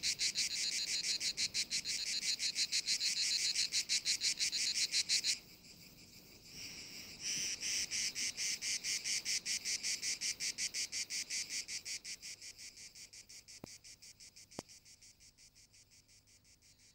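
Crickets chirping in a rapid, even pulsing rhythm, several chirps a second. The chirping stops for about two seconds some five seconds in, starts again, and fades out toward the end, with two faint clicks as it dies away.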